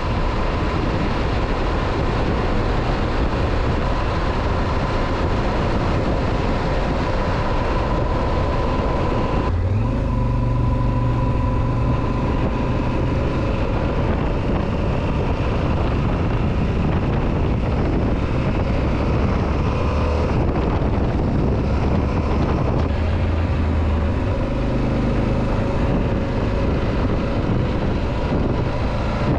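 Yamaha XT1200ZE Super Ténéré's parallel-twin engine running at road speed, mixed with wind noise on the microphone. The engine note changes suddenly about ten seconds in.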